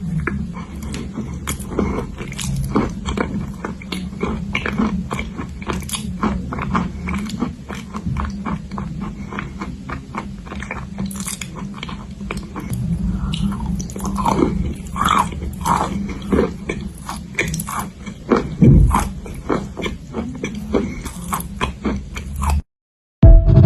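Close-up crunching and chewing of edible chalk clay: a dense run of crisp, crackly bite and chew clicks that cuts off abruptly near the end.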